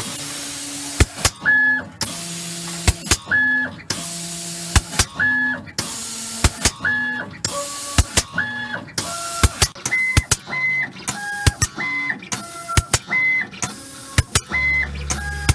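FSCC06 micro spray gun on an automated coating mover working in a steady cycle: bursts of air hiss about a second long as each line is sprayed, alternating with short motor whines of a few fixed pitches and sharp clicks as the gun moves on. After about ten seconds the cycle turns shorter and quicker, and a low hum comes in near the end.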